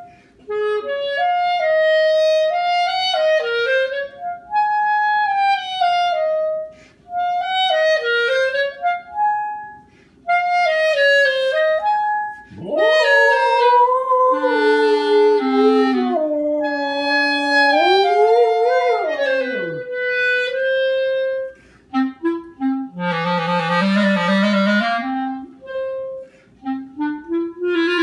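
A clarinet plays a slow melody of held notes while a husky howls along. About halfway through, the dog's howl slides steeply up, wavers over the clarinet's notes for several seconds, then falls away. Near the end another rising howl begins.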